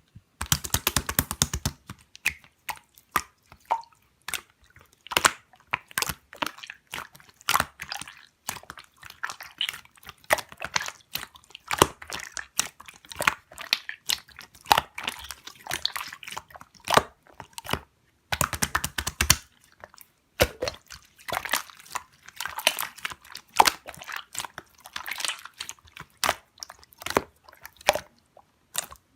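Slime being squeezed and poked by hand, making a steady stream of sticky clicks, crackles and squishes. Very rapid runs of clicks come right at the start and again about two-thirds of the way in.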